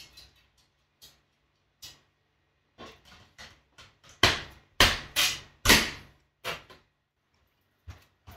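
Whole house fan ceiling grille's removable filter panel being handled and pushed back into its metal frame: scattered light clicks and knocks, then four sharp knocks about four to six seconds in as it is pressed into place.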